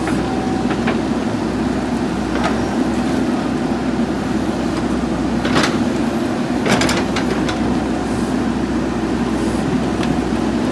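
JCB backhoe loader's diesel engine running steadily while it digs, with a few sharp knocks and clanks about five and a half to seven seconds in.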